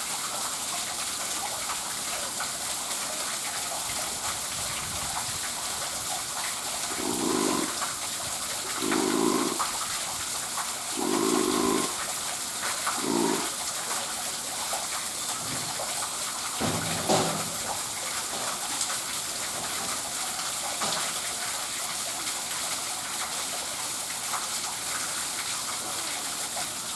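Spotted seal making low, snore-like sounds, which the uploader wonders may be snoring: four short ones about two seconds apart starting about a quarter of the way in, and one more a few seconds later. A steady rush of water runs underneath.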